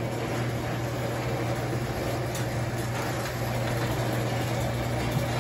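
Steady low mechanical hum from a running motor.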